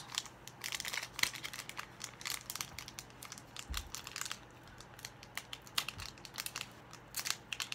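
Foil booster-pack wrapper crinkling and crackling in the hands as someone works to tear it open, giving many small irregular crackles.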